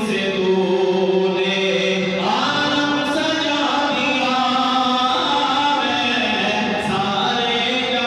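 A man's voice chanting a naat unaccompanied, holding long, drawn-out notes. The pitch steps up about two seconds in and falls back near the end.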